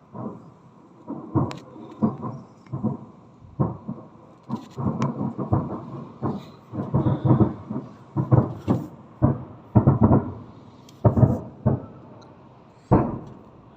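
Aerial fireworks going off: an irregular string of deep bangs with short rumbling tails, coming several a second where they are busiest, about seven to eleven seconds in.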